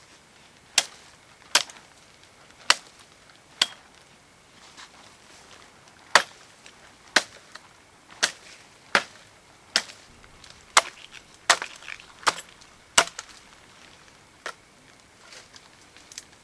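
Wood being chopped by hand with a blade: about thirteen sharp strikes, roughly one a second, with a short pause after the fourth.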